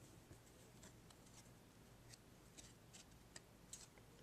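Faint, scattered clicks and light rustling of trading cards being handled and slid one behind another, about half a dozen small clicks.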